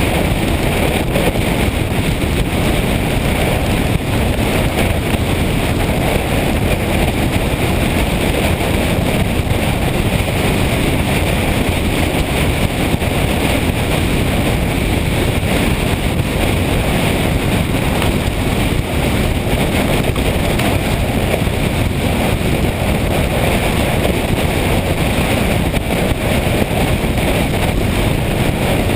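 Steady wind rush on the microphone, mixed with the running noise of a motorcycle on the move.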